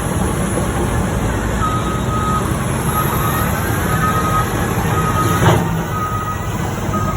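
Heavy diesel machine running with a low rumble while its reversing alarm beeps about once a second, a steady single-pitched beep starting a couple of seconds in. A single sharp knock sounds near the end.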